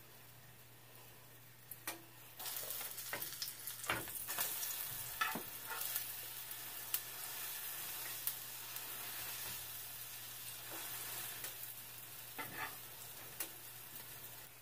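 Pancake batter sizzling in a hot nonstick frying pan, the sizzle starting about two seconds in and holding steady, with scattered sharp taps and scrapes of a utensil against the pan.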